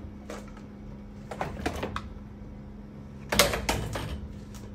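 Knocks and clatter of battery string trimmers' shafts and plastic heads bumping against each other and the rack as one is handled and pulled out. The loudest rattle comes about three and a half seconds in, over a steady low hum.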